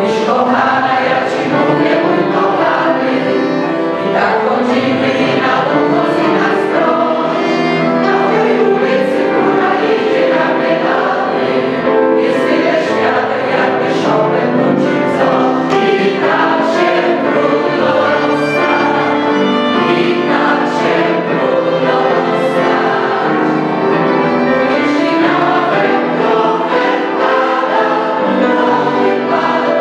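Mixed choir of women's and men's voices singing a Polish song in sustained, steady phrases, with piano and violin accompaniment.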